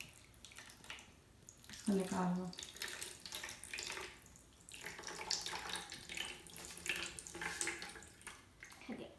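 Water pouring from a plastic pitcher into a glass bowl of sugar, a running splash that starts about two seconds in.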